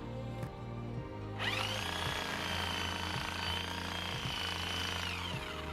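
DeWalt reciprocating saw with a wood blade cutting through tree root suckers: the motor spins up about a second and a half in, runs at a steady high whine, then winds down near the end. Background music plays underneath.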